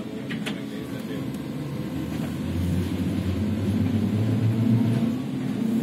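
Ikarus-Ganz 280.94 articulated trolleybus with Ganz electric drive running along the road: a steady low hum of the traction drive over road rumble, getting louder about halfway through, with a couple of faint clicks near the start.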